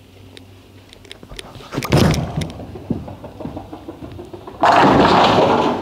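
A urethane bowling ball lands on the lane with a loud thud about two seconds in and rolls down it, then crashes into the pins near the end in a sudden loud clatter lasting about a second.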